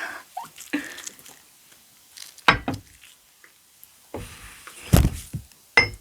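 Close-miked ASMR handling sounds: two dull thunks about two and a half seconds apart, each with a brief trailing rustle, and a lighter tap near the end.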